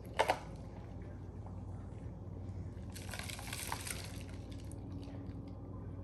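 Liquid sounds: a short burst of pouring or sloshing liquid about three seconds in, over a steady low hum.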